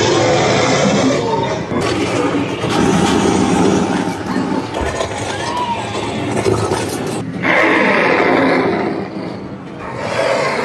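Loud haunted-house audio: a dense mix of soundtrack music, sound effects and voices, changing abruptly about two seconds in and again about seven seconds in where the walkthrough clips are cut together.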